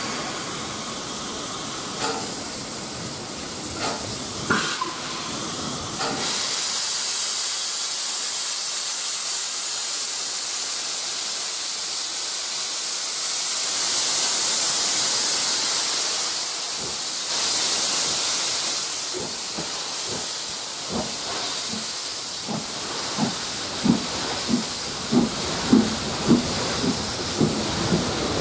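LMS Coronation Class steam locomotive 46233 'Duchess of Sutherland' standing with steam hissing steadily, louder for a few seconds in the middle. In the last several seconds a run of sharp clacks comes about twice a second.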